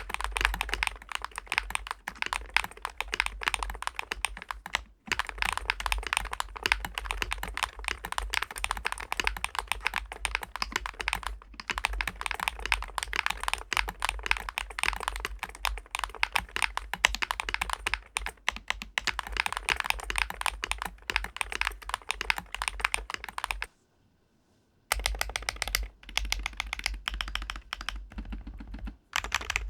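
Fast typing on a DAREU COOL60 keyboard with magnetic switches: a dense stream of key clacks that breaks off into silence for about a second near the end, then resumes.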